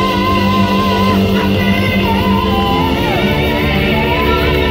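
Live gospel-blues band playing: electric guitars, drums, bass and keyboard under a singing vocal line that holds long, wavering notes.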